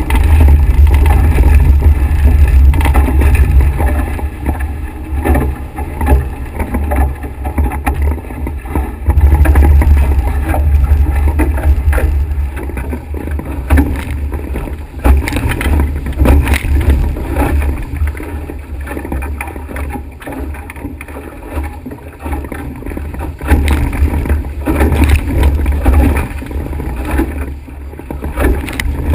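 Strong wind rumbling on the microphone over the rush and splash of water along a Nacra 5.8na sailing catamaran's hulls as it sails fast. The rumble swells and eases in gusts.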